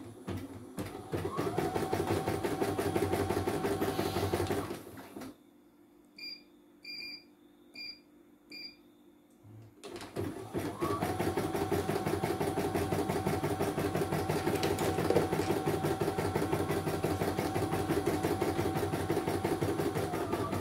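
CNY E900 computerized embroidery machine stitching with a rapid needle rhythm, which stops about five seconds in. A few short electronic beeps come from the machine's controls during the pause, and the stitching starts again about ten seconds in and runs steadily.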